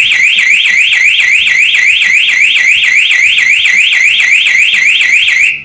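DEO Akira motorcycle alarm siren sounding its triggered alarm tone, a loud electronic warble sweeping rapidly up and down about four to five times a second. It stops abruptly near the end. The siren is driven by an audio-signal output from the alarm module, not by a steady 12 V.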